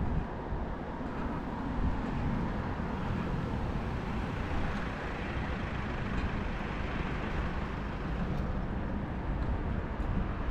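Road traffic noise heard from a moving bicycle on a city street, with gusty wind rumble on the microphone; a vehicle's hiss swells through the middle and fades.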